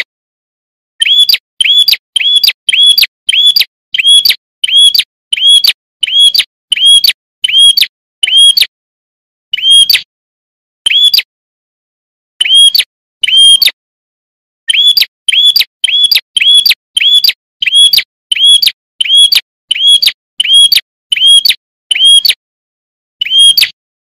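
Prinia (prenjak) calling: a long series of short, sharp, upward-flicked chirps, about one and a half a second, broken by a few pauses of about a second.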